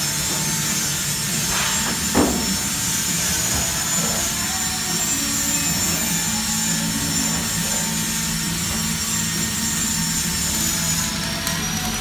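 Steady workshop machine noise: a low hum with a constant high whine and hiss, and one knock about two seconds in.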